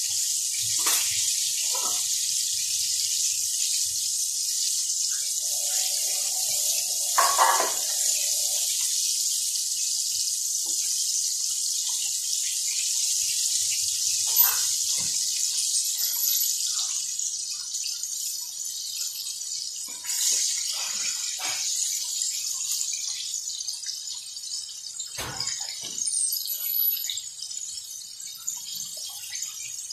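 Flour-and-egg-coated chicken pieces deep-frying in a pan of oil: a steady sizzle with scattered crackles and pops, growing quieter in the second half. A brief knock about seven seconds in.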